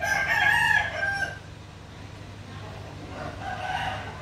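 A rooster crowing: one loud crow of about a second and a half at the start, then a second, fainter crow near the end.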